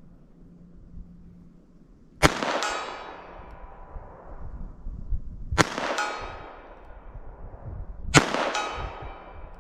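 Three shots from a snub-nose revolver firing .38 Special wadcutters, the first about two seconds in and the others roughly three seconds apart. Each shot is followed by a ringing clang that dies away slowly, typical of a bullet striking a steel target plate.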